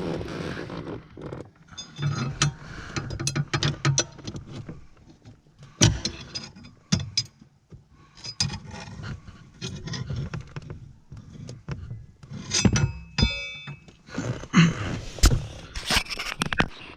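Hand work on a car's clutch master cylinder mounting under the dash: scattered clicks, knocks and rubbing of parts and tools, with a brief metallic ring about 13 seconds in.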